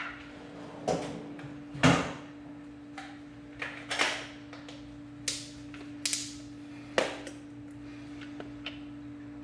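Handling noises at a portal gear hub during an oil drain: a few scattered clicks and knocks, the loudest about two seconds in, over a steady faint hum.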